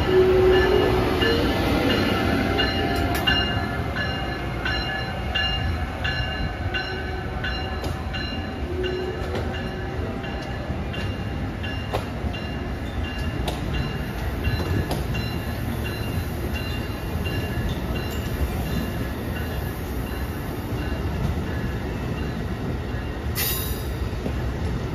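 Amtrak Northeast Regional train hauled by a Siemens ACS-64 electric locomotive pulling out, with a rising electric whine at first. Then the passenger cars roll past with a steady rumble and repeated wheel clicks with some ringing, and there is a brief hiss near the end.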